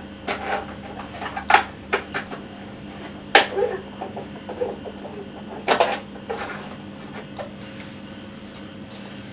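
A few sharp knocks and rattles from objects being handled, the loudest about three and a half seconds in, over a steady low hum.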